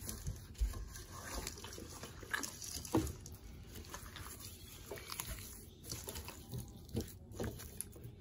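Raw chicken legs being worked by hand with dry spices in a stainless steel bowl: faint wet squelching of the meat, with a few sharper slaps, the clearest about three seconds in.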